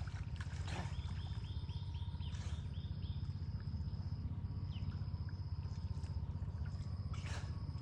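A bird calling a quick run of short, falling chirps, about four a second, starting about a second in, over a steady thin insect trill and a low steady rumble. A brief rustling burst near the end.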